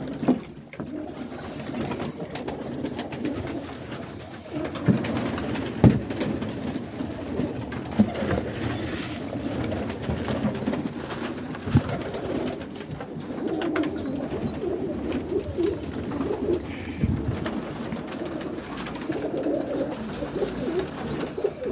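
A loft of roller pigeons cooing, with short high peeps repeating over the cooing and a few sharp knocks or wing claps.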